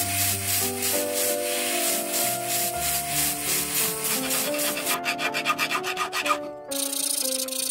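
Sanding drum on a rotary handpiece rubbing along the edge of a sterling silver cuff bracelet, a scratchy, rapidly pulsing noise. About two-thirds in it gives way to a hand file scraping the edge. Soft piano music plays underneath.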